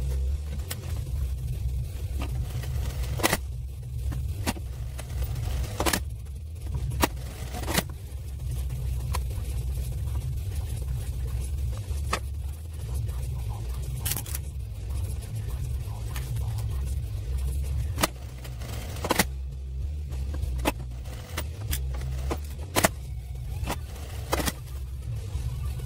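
Sewing-work noise at an industrial sewing machine: a steady low rumble with scattered sharp clicks and taps as fabric and small tools are handled.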